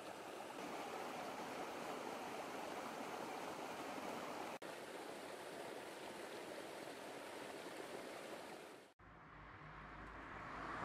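Stream water running over rocks, a steady rush that cuts out for an instant about four and a half seconds in. Near the end it stops abruptly and a rising whoosh begins.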